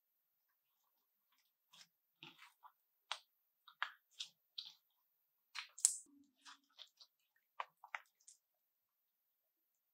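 Crunchy butter slime being pressed and worked by hand, giving irregular short crackles and bubble pops from about two seconds in until near the end.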